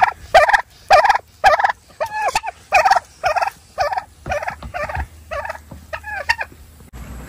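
Domestic fowl calling: a run of loud, harsh, repeated calls, about two a second, some of them dropping in pitch.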